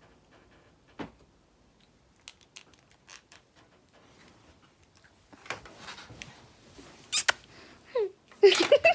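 Scattered clicks, taps and rustling handling noises, sparse at first and busier after about five seconds, with a sharp click about seven seconds in and a few short pitched sounds near the end.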